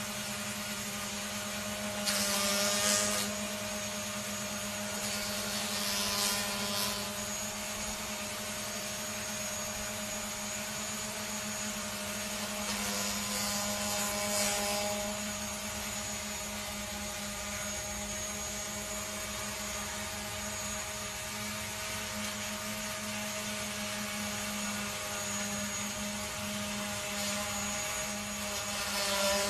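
Small folding quadcopter drone hovering, its propellers giving a steady whining hum. A few brief louder rushes of noise come and go, about two seconds in, around six seconds, around fourteen seconds and near the end.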